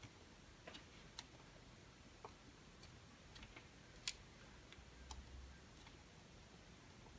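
Faint, irregular clicks of multimeter probe tips touching down on LEDs on a circuit board, with the sharpest click about four seconds in.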